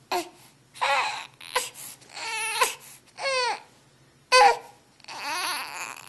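A young infant cooing and squealing: a string of about seven short, high-pitched vocal sounds, some sliding up or down in pitch, with brief pauses between them.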